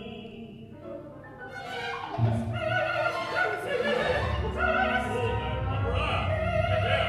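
Contemporary classical music: operatic singing with a wide vibrato over an orchestra. It is quieter for the first two seconds, then the voice and the fuller orchestral texture come in.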